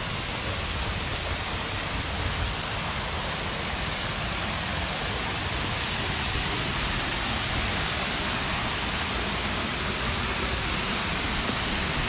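Tall waterfall pouring over a rock overhang: a steady, even rush of falling water, swelling slightly toward the end.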